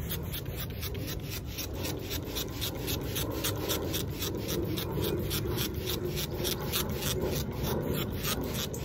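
Hand trigger spray bottle pumped rapidly, about five quick hissing squirts a second, misting cleaner onto a carpet floor mat.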